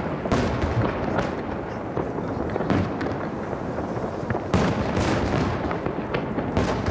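Fireworks shells bursting one after another: sharp bangs over a continuous rumble, with the loudest bang about four and a half seconds in.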